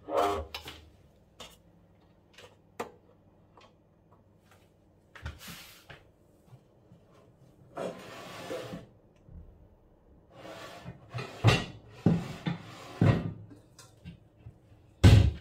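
Kitchen handling noises: scattered knocks and clicks of cupboard doors, drawers and cookware, with a brief rush of noise about eight seconds in and the loudest thumps near the end.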